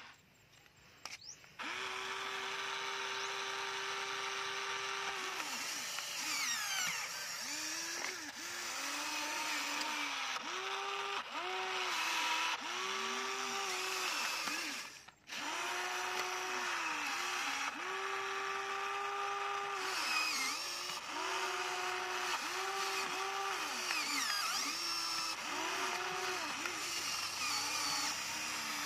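Electric motors of a Huina radio-controlled toy excavator whining in repeated short stop-start runs as the boom, arm and bucket move, the pitch bending at the start and end of each run. The sound drops out briefly about a second in and again about halfway through.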